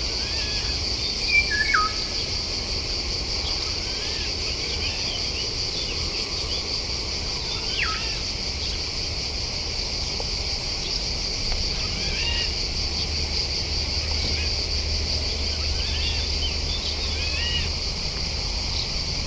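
A steady, shrill insect chorus with many short bird chirps and calls over it. The loudest call is a falling one about a second and a half in, and another long falling call comes near the middle. A low steady rumble sits beneath.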